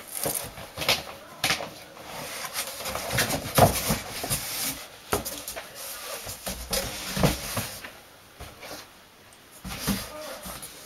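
Cardboard box and packaging being handled and opened: flaps scraping and rustling, with a run of irregular knocks and thumps, the loudest about three and a half seconds in.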